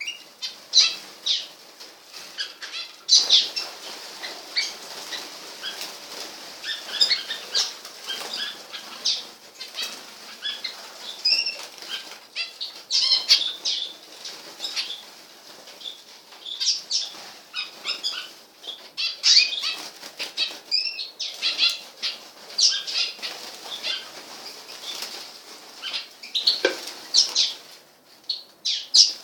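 Small pet birds chirping with many short, high calls, mixed with the flutter of wings.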